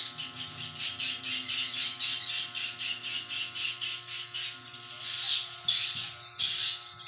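Swiftlets' rapid, chattering twitter: quick chirps several times a second, with louder, longer calls from about five seconds in, over a faint steady hum.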